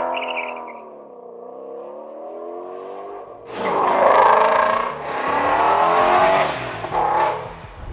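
Ford Shelby GT350's 5.2-litre flat-plane-crank V8 revving, quieter for the first few seconds. Then the car accelerates hard past with a much louder surge about three and a half seconds in, its pitch climbing, dipping briefly, climbing again and falling away near the end.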